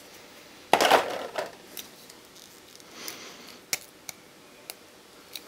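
Packaging rustling loudly for about half a second as a model airliner is unwrapped, then a few light, sharp clicks of small plastic parts being handled.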